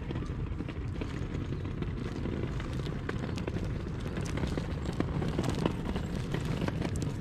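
Wind buffeting the microphone: a steady low rumble, with scattered small crackles on top.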